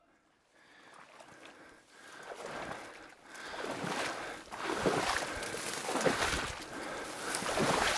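Steps wading through shallow marsh water and dry cattails: a soft swish and slosh about once a second, starting almost silent and growing louder after the first couple of seconds.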